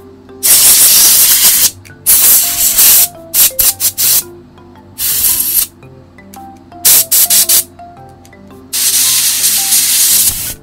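Can of compressed air sprayed onto the circuit board of an opened computer mouse in bursts: long blasts near the start and end, with quick runs of short puffs in between. Quiet background music plays underneath.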